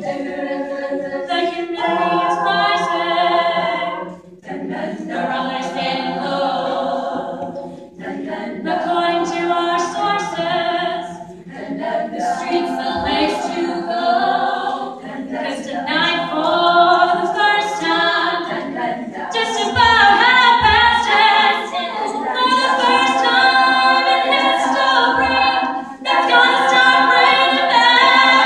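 An a cappella vocal group singing in harmony, phrase after phrase, with brief breaks between the phrases in the first half.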